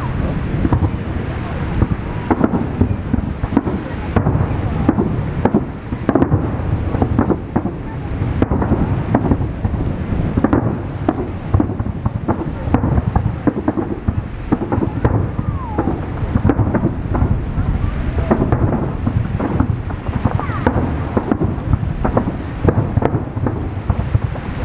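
Aerial fireworks shells bursting in a dense barrage: rapid, overlapping booms and crackles with no let-up.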